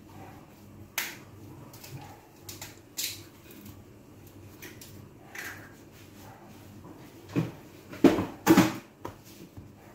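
Plastic rolling pin rolling out a sheet of stiff dough on a floured stone countertop, with a few light knocks of the pin and hands against the counter. The loudest knocks come about eight seconds in.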